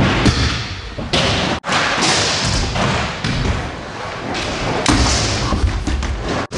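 Stunt scooter wheels rolling and grinding along the edge of a skatepark box, with the thuds of the scooter landing. The sound cuts out abruptly twice.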